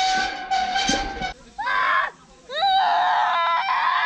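A child's high-pitched screaming: one long held shriek, a short one about two seconds in, then another long held shriek.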